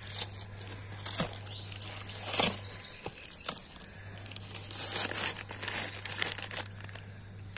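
A cardboard delivery box being torn open by hand, with newspaper wrapping rustling and crinkling. A few sharp rips come in the first three seconds, then denser rustling.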